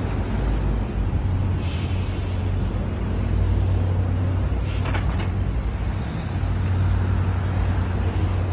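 Steady low hum of outdoor city street noise with a held low drone, and two short swells of noise about two and five seconds in.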